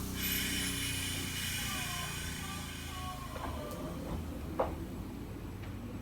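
Echizen Railway train at the station, giving a sudden hiss that fades within about a second and a half, over a steady low hum, with a sharp click a little after halfway.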